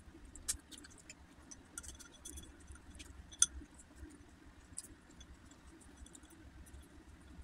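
Chopsticks clicking and tapping against a dish while eating: scattered light clicks, with a sharper one about half a second in and the loudest a little before halfway.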